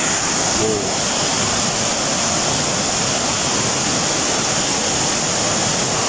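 Swollen, muddy river water rushing over rapids: a steady hiss of white water.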